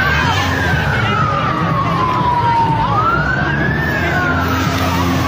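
Emergency vehicle siren wailing: the pitch climbs over about a second, then sinks slowly over two, twice in a row, over a steady low rumble.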